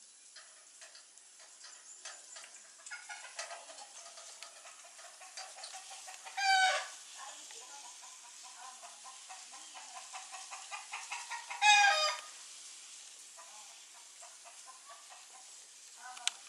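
Animal calls: two runs of short pitched notes that quicken and each end in a loud, drawn-out call, a pattern like a hen's cackle, with one more short sharp call near the end.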